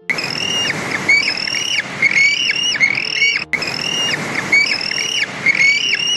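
Seabird colony calling: many repeated high calls, each arching and then dropping at the end, over a loud rushing din. The same stretch of sound plays twice, with a brief dropout about three and a half seconds in.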